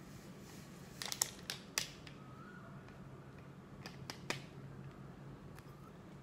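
Sharp clicks and taps as a sachet is handled and set into an enamel mug, a cluster of several about a second in and a few more about four seconds in, over a faint steady hum.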